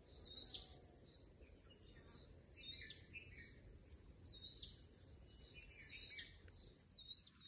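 Countryside ambience: a steady high-pitched drone of crickets, with a bird repeating a short call that sweeps sharply upward every second or two.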